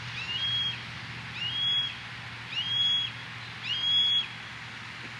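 Juvenile red-tailed hawk giving its begging call, a high, drawn-out squeal repeated four times about once a second, each rising into a held note and dropping off at the end.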